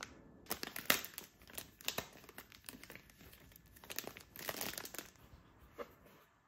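Thin plastic film packaging crinkling as it is handled and pressed, in irregular bursts, with a light tap near the end.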